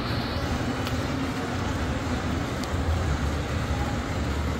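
Steady rushing noise of tropical-storm wind and heavy rain, with a low, uneven rumble underneath.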